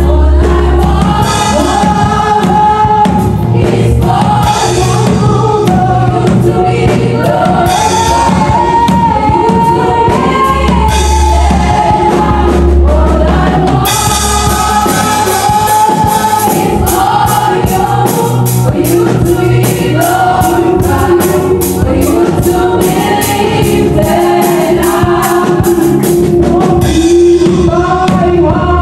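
Gospel choir singing with a female lead vocalist on microphone, backed by a live band with a drum kit. About halfway through, the cymbals turn brighter and busier.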